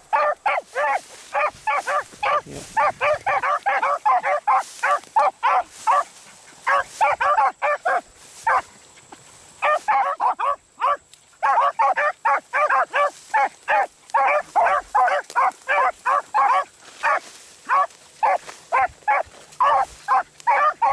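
Two beagles baying while running a rabbit's scent trail: a fast string of short, high barks, several a second, from both hounds. The barking pauses briefly about halfway through, then picks up again.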